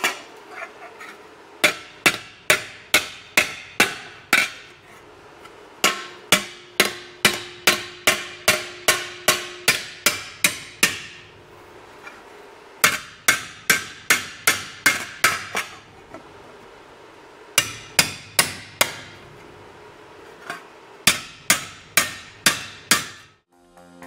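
Hand hammer striking a sheet-metal patch panel to roll its edge over. The blows come in runs at about three to four a second, with short pauses between the runs.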